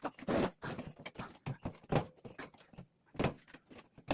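Irregular knocks and clatters of air-conditioner filters being handled.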